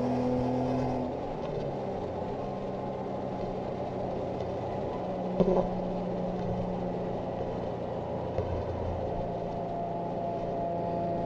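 Infiniti G35's 3.5-litre V6 through a catless, straight-piped 3-inch exhaust with a single Magnaflow muffler, heard from inside the cabin at highway cruise. The engine note climbs slightly, eases off about a second in, then settles into a steady drone under road noise, with a brief click about five seconds in.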